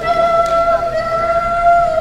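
A woman singing a Javanese tembang (macapat), holding one long, slightly wavering note. A gamelan metallophone is struck softly once about a quarter of the way in.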